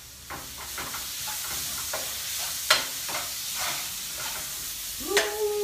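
Chopped sausage and vegetables sizzling in a frying pan on a gas burner while a metal spatula stirs and scrapes them, with one sharp clack about halfway through.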